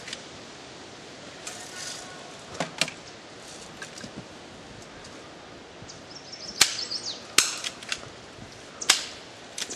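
Airsoft guns firing single shots: scattered sharp cracks, a pair about two and a half seconds in, then several louder ones in the last three seconds.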